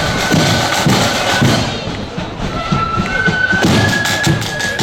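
Marching band playing: repeated drum beats and sharp drum strokes under a high melody of held notes.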